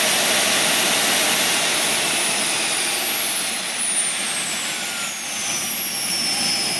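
PST 600R model jet turbine running on the ground with a loud rushing hiss and a high whine. From about two seconds in, the whine falls steadily in pitch as the turbine spools down.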